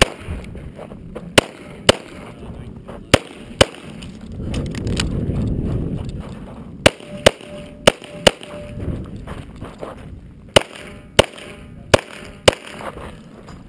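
9mm EAA/Tanfoglio Witness Match pistol firing rapidly, about thirteen shots, mostly in quick pairs about half a second apart. There is a low rushing noise in the pause around five seconds in.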